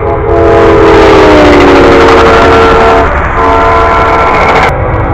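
Locomotive air horn blowing a chord of several notes over the low rumble of the train. The chord sags in pitch about a second and a half in, falters briefly about three seconds in, and cuts off sharply near the end.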